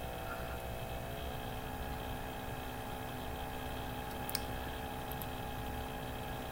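Steady electrical hum with a faint hiss, made of several fixed tones, with a single short click about four seconds in.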